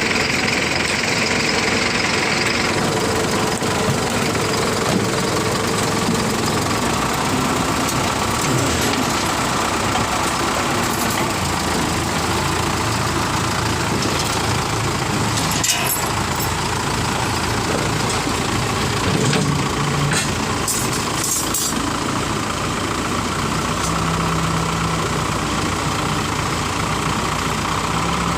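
A vehicle engine running steadily at a constant level, with a few sharp clicks over it in the second half.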